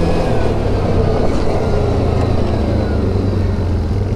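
ATV engine running steadily, its pitch stepping up slightly shortly after the start.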